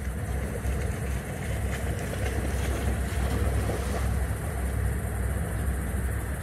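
Dogs wading through a shallow river, water sloshing and splashing around their legs, under a steady low rumble.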